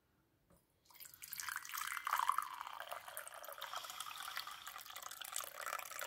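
Tea being poured from a glass pot into a glass mug, a steady splashing stream of liquid that starts about a second in.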